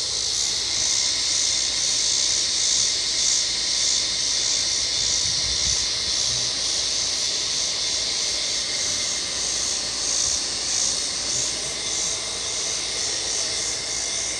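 A chorus of cicadas (locusts) droning steadily at a high pitch, pulsing about twice a second. Under it runs a faint, steady hum.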